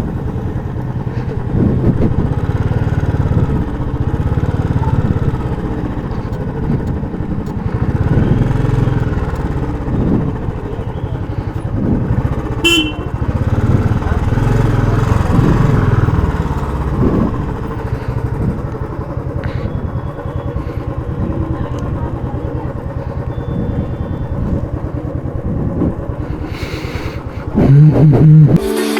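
Royal Enfield Classic 350's single-cylinder engine thumping through its stock exhaust while riding, its note rising and falling with the throttle.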